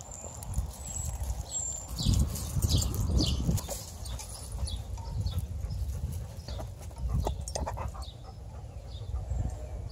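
Rumbling handling noise on a body-worn camera, loudest a couple of seconds in, with light metallic clinks from the leash clips and dog tags as the dogs walk. A few faint high chirps sound about a second in.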